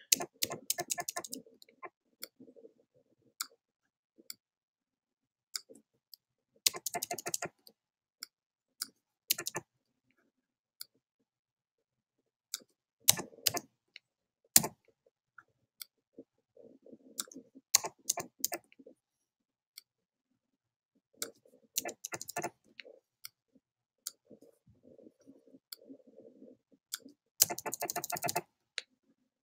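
Clicking from a computer mouse and keyboard: scattered single clicks and short quick runs of clicks every few seconds, with faint low rustling between them.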